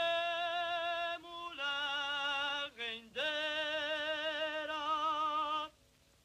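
A single voice singing long, held notes with vibrato, unaccompanied, in three phrases with short breaks between them; the pitch drops after the first phrase, and the singing stops shortly before the end.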